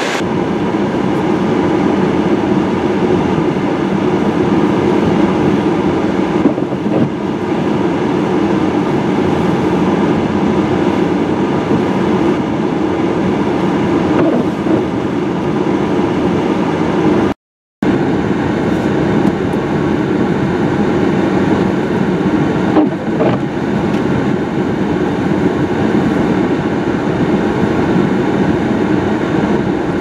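Strong blizzard wind blowing across the microphone: a steady, loud rumble with no let-up. The sound cuts out briefly once, just past the middle.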